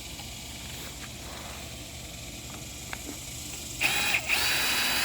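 Power drill/driver motor whining at a steady pitch in two short bursts near the end, backing out a bolt holding the edger's carburetor.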